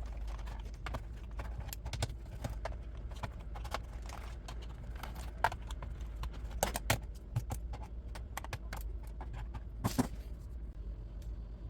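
Irregular small clicks, taps and knocks of a laptop being opened up by hand, tools and small parts knocking against its plastic case, over a steady low hum. The sharpest knocks come about seven and ten seconds in.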